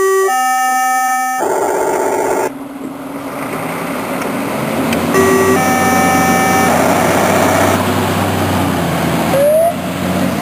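Fire station turnout alarm sounding in repeating electronic tones, a steady tone then a warble, while a fire engine's diesel engine runs and pulls away, growing louder. A short rising tone sounds near the end.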